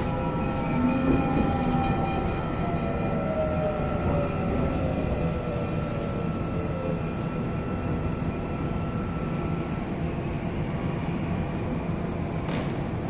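D712 (Série 9500) electric multiple unit running, heard inside the passenger car: steady rumble of wheels and motors with a motor whine that falls in pitch over the first several seconds, and a steady high whine that stops about ten seconds in.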